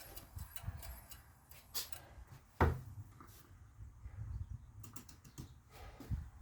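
Objects being handled and moved about in a search: scattered light knocks and clatter, with one louder knock about two and a half seconds in.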